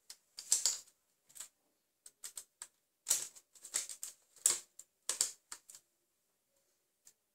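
Irregular sharp plastic clicks and clacks, about a dozen in small clusters, from a LEGO brick-built rifle being handled and readied to fire. They stop about two-thirds of the way through.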